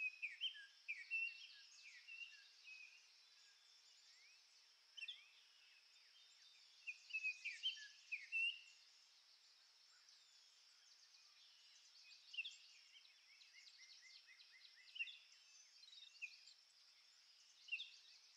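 Small birds chirping: scattered short, quick call notes in clusters, loudest about seven to eight and a half seconds in, over a faint steady high hiss.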